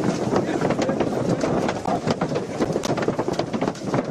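Crowd commotion: many voices at once with jostling movement, and frequent sharp clicks and knocks scattered through it.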